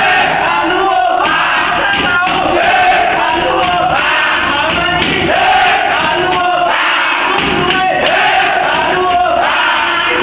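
A group of young footballers chanting and singing loudly together in celebration, with shouts and scattered thumps.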